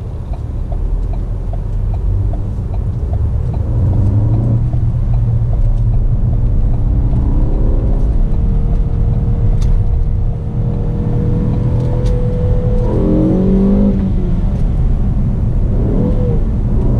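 Ford Focus ST's turbocharged four-cylinder engine, heard from inside the cabin, revved hard under full-throttle acceleration in first gear. The pitch climbs as the revs rise and is then held high, with a brief dip about ten seconds in.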